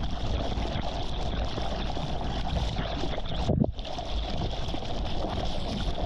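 Seawater rushing and churning around a GoPro in its waterproof housing while surfing, a steady muffled wash with a brief drop-out about three and a half seconds in.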